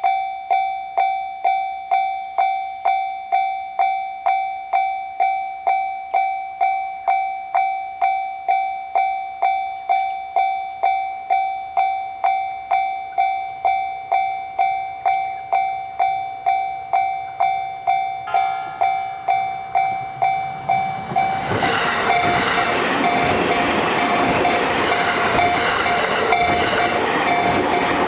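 Japanese railroad crossing warning bell ringing its 'kan kan' tone, about two strikes a second. About twenty seconds in, a JR Sobu Line train rushes through the crossing, loud and steady, over the bell.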